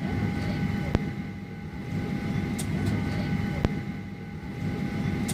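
Steady cabin hum of a Boeing 737-800 parked at the gate with the engines not yet running, carrying a steady whine. Two sharp clicks sound, about a second in and again near the four-second mark.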